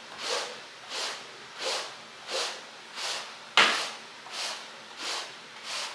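Rubber-bristle broom dragged in repeated strokes across a woven rug, pulling up embedded cat fur; a steady scraping rhythm of about one and a half strokes a second, with one sharper, louder stroke a little past halfway.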